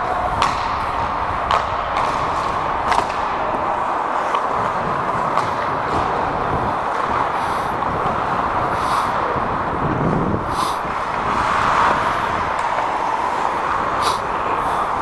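Ice hockey play heard from on the ice: a steady rink noise with a few sharp stick-and-puck clacks and several brief skate-blade scrapes on the ice.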